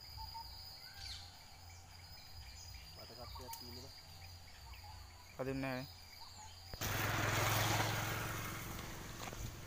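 A hand-thrown cast net landing on the water: a sudden splashing hiss as its weighted rim slaps down across the surface in a wide ring, starting about seven seconds in, swelling briefly and fading over about two seconds.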